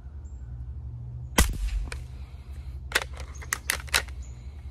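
A single shot from an Umarex Heckler & Koch MP7 .177 break-barrel air rifle about a second and a half in: one sharp crack. A fainter click follows half a second later, then a quick run of four sharp clicks and knocks about a second after that.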